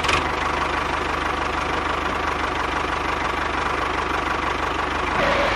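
Small tractor engine running steadily at idle with a fast, even knocking beat.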